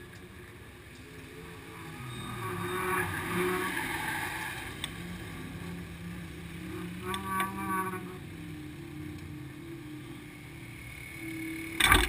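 Vehicle engines running at low speed, swelling over a few seconds and fading as a pickup truck passes. A few sharp knocks come near the end.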